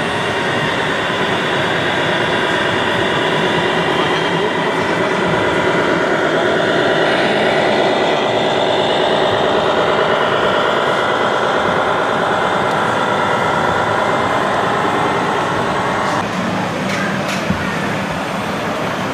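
Electronic engine sound module of a scale RC semi truck, running with a steady diesel-like drone that drifts a little in pitch, over the hum of a busy hall. The sound changes about three-quarters of the way through.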